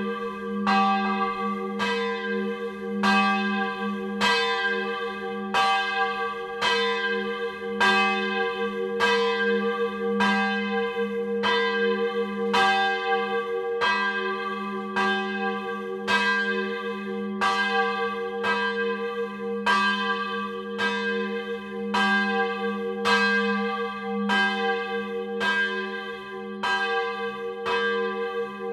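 A single bronze church bell rung 'a distesa', swinging in its steel frame with its clapper striking about once a second. Its deep hum and partials keep ringing between the strokes.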